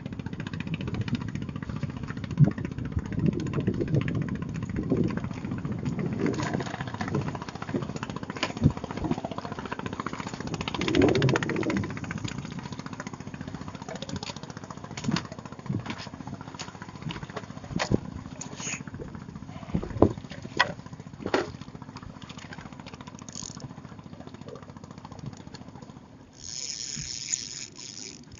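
A small engine running steadily, with scattered knocks and clicks over it. A short burst of hiss comes near the end.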